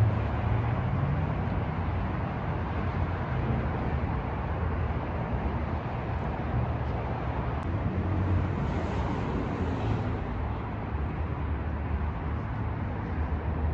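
Steady outdoor road-traffic noise, an even wash of passing cars with a low rumble underneath.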